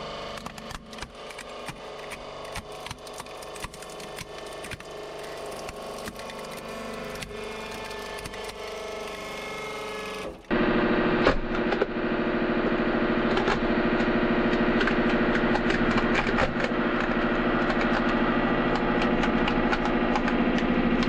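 Hydraulic press crushing a plastic toy, with many sharp cracks and snaps as the plastic gives way. About ten seconds in it changes to a louder, steady hum from the press's pump, with metal crinkling and clicking as a thin printed metal box is flattened.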